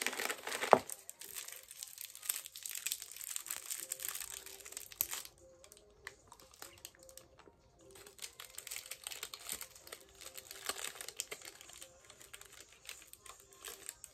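Candy wrapper crinkling as it is opened and handled, with a sharp snap about a second in. The crinkling dies down for a few seconds around the middle, then starts again.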